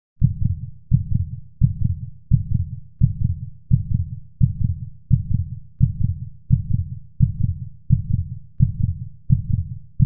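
Heartbeat sound effect: a deep, steady double thud repeating about every 0.7 seconds, roughly fourteen beats.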